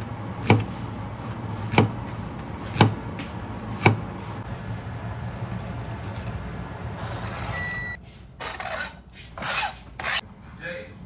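Chef's knife chopping zucchini on a plastic cutting board: four sharp knocks about a second apart. Later a short high beep, then diced carrot and zucchini scraped and slid off the board into a pot of water, a few swishing scrapes.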